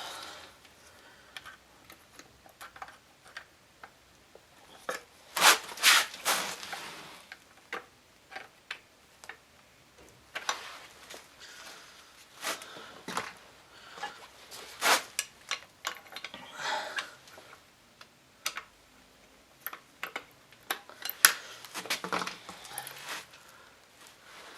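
Metal hand tools and engine parts clinking and knocking on a workbench during a scooter engine teardown: irregular light clicks with a few louder clusters of clatter.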